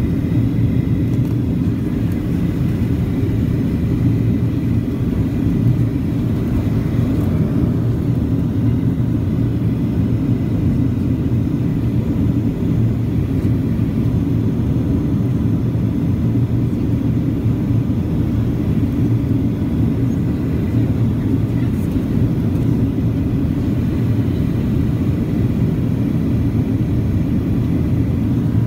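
Steady low rumble of a Boeing 737's engines and rushing air, heard inside the cabin from a window seat over the wing during the descent to land.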